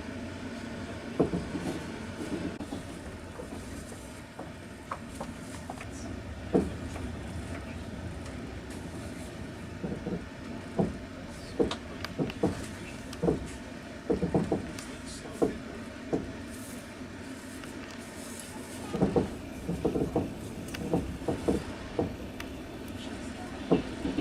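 Passenger train carriage heard from inside while running: a steady low rumble with irregular clacks and knocks of the wheels over rail joints, more frequent in the middle and near the end.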